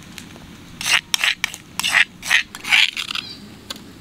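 A metal spoon scraping and tapping on a stainless steel tray as chili paste is scraped off it, heard as a series of short rasps and clicks from about one second in to about three seconds in.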